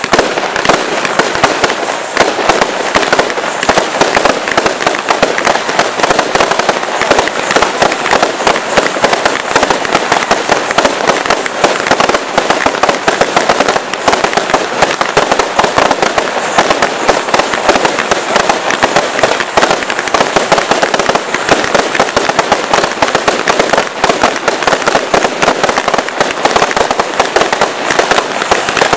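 Hardix Aftershock Thunder firework cake, a 90-shot report cake, firing a fast, unbroken barrage of bangs.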